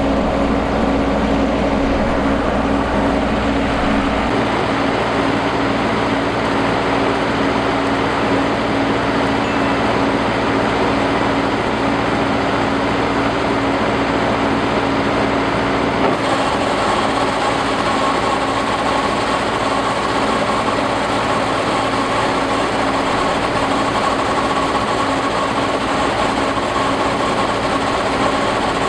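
Combine harvester running steadily, its engine and machinery giving a loud continuous drone with a constant tone. The sound changes about four seconds in, and again just past halfway, where a higher steady whine joins.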